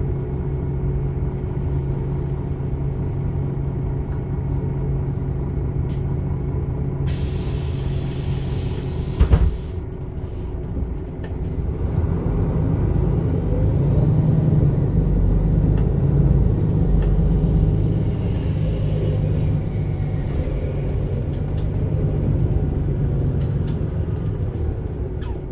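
MAN Lion's City A21 diesel bus idling, then a burst of compressed-air hiss lasting about two seconds and a sharp knock. From about halfway the engine pulls away under load, its drone growing louder with a rising whine from the ZF EcoLife automatic gearbox as it accelerates.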